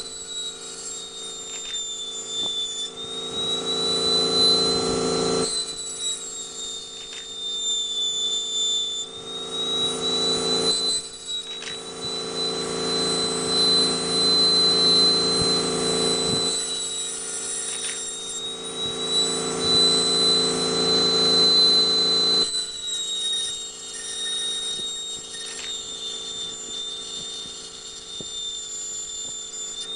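High-speed engraving handpiece whining steadily at a high pitch as its bur grinds into a glass vase, the pitch dipping slightly now and then.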